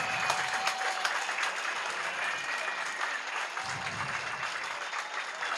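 A crowd applauding, many hands clapping in a steady dense patter that eases slightly toward the end.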